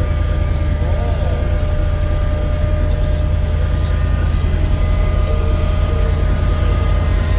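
Heavy, steady bass from a car audio system's bank of 18-inch subwoofers played at high volume.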